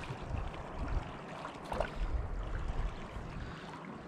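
Rio Grande river water running, under a low, uneven rumble.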